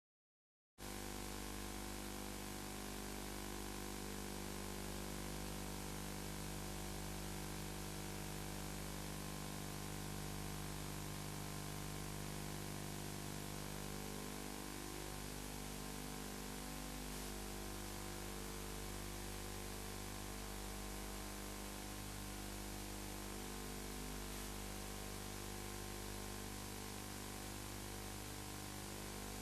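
Steady electrical hum with a layer of hiss: recording noise, with no hoofbeats or voices standing out.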